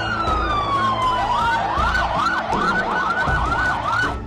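Ambulance sirens wailing in a crowded street. A slow falling wail comes first, then from about two seconds in a fast rising-and-falling yelp repeats several times a second, over a low street rumble.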